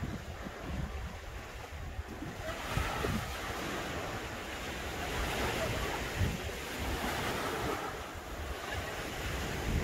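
Small sea waves washing onto the sand and around the base of coastal rocks, growing louder a couple of seconds in, with wind buffeting the microphone.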